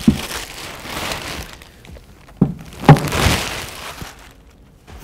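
Thin plastic bag crinkling and rustling as a black plastic bucket is pulled out of it and handled, with a few knocks of the bucket against the table, the loudest about three seconds in.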